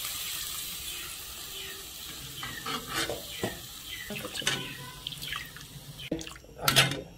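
Lukewarm water poured into a pan of hot frying spice paste: a hissing, watery rush that fades over the first two seconds. Then a spatula knocks and scrapes against the pan as the wet spices are stirred.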